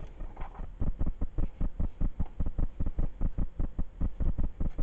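Rapid, regular low thumping, about six beats a second.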